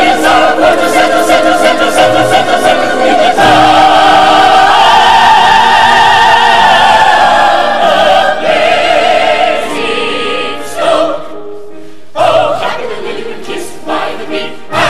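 Operetta cast and chorus singing together in full voice, with a long held chord in the middle. The sound thins out and breaks off briefly about eleven seconds in, then the singing starts again.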